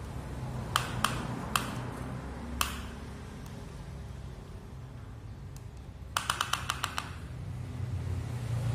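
Plastic toy excavator worked by hand, its arm and bucket clicking and tapping: a few single clicks near the start, then a quick run of about eight clicks after a pause, over a low steady rumble.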